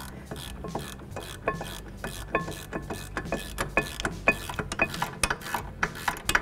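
Ratcheting box-end wrench clicking as it is swung back and forth to run in a 14 mm caliper bracket mounting bolt, a steady string of short clicks about three a second.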